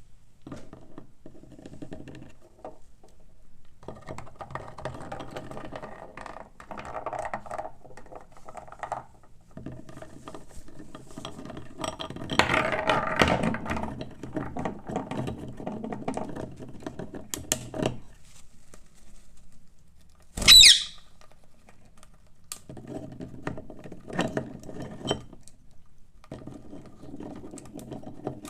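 A parrot gnawing and cracking a walnut shell with its beak: scraping, crunching clicks in bouts with short pauses. One brief, loud, shrill squawk comes about two-thirds of the way through.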